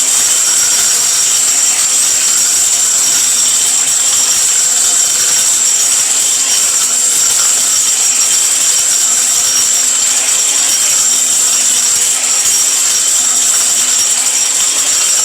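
High-speed electric mixer grinder running flat out, its blade spinning at a claimed 28,000 rpm as it grinds whole dried turmeric to powder. It gives a loud, steady, high-pitched whine with a rushing hiss.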